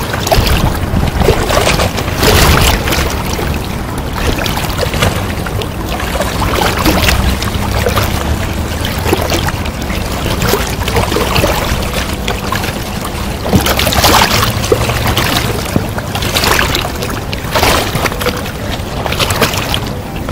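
Wind buffeting the microphone in gusts over the steady rush of river water.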